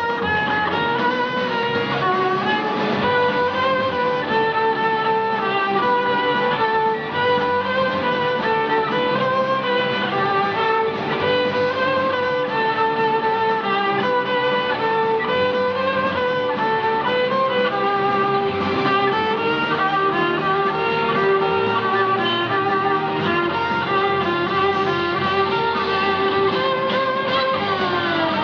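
Violin playing a lively melody in short notes.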